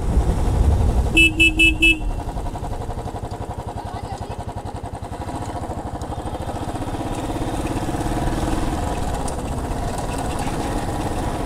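Motorcycle engine running while riding, with a horn sounding a quick run of about four short beeps about a second in.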